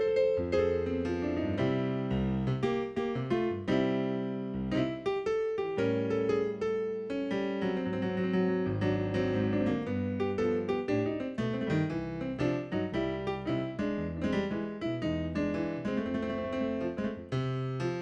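Digital piano playing an instrumental passage: full chords with bass notes underneath and frequent note changes, no singing over it.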